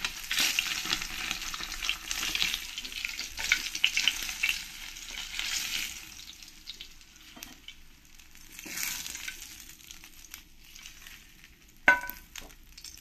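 Pieces of shol (snakehead) fish sizzling and crackling in hot frying oil as they are lifted out of the pan one by one. The sizzle is strong for the first half, then dies down, with a brief flare later. A sharp ringing knock of utensil on metal comes near the end.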